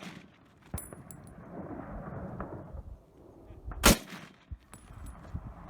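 M1 Garand rifle firing a single loud .30-06 shot about four seconds in, with the fading tail of a shot just before at the start. About a second after each shot comes a short, high metallic ring.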